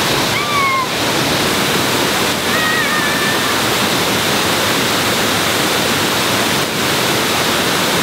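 Waterfall pouring: a steady, loud rush of falling water. Two brief high-pitched tones sound over it, about half a second in and again about two and a half seconds in.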